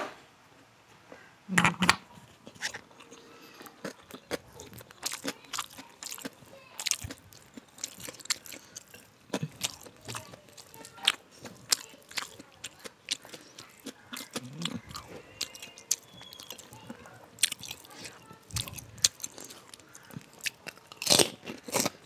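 A woman chewing a big mouthful of rice and curried food close to the microphone: irregular wet mouth clicks and crunches, several a second, with a louder crunch about two seconds in and a run of loud ones near the end.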